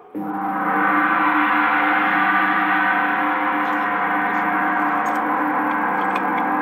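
The quiz show's ringing sound cue that plays while the spinning top turns on the roulette table to pick the next question: a steady chord of several held tones that starts abruptly and does not fade.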